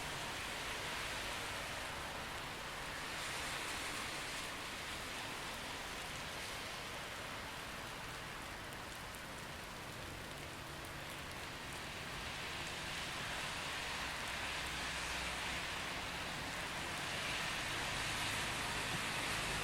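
Steady rain in a city street, with the hiss of tyres on the wet road swelling and fading slowly as traffic passes.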